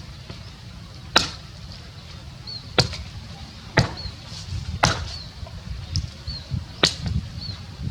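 A knife chopping on a cutting board: five sharp, irregularly spaced strikes about a second apart.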